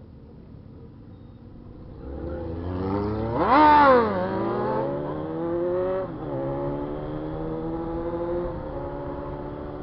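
A motorcycle engine comes up about two seconds in and is revved sharply once, which is the loudest moment. It then accelerates, its pitch rising and dropping suddenly at two upshifts.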